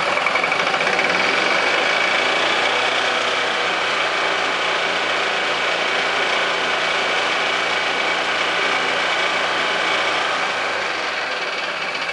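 Yamaha G29 golf cart's single-cylinder four-stroke gas engine running steadily at about 3,500 rpm, near the top speed its governor allows, with its drive clutch and belt spinning.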